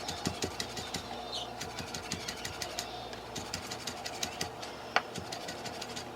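Kitchen knife chopping fresh herbs on a cutting board: a fast, steady run of light taps, several a second, with one sharper knock about five seconds in.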